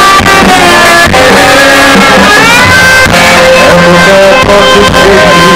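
Live rock band playing very loud through a concert PA: sustained guitar lines, some notes bending upward about two seconds in, over steady drum hits.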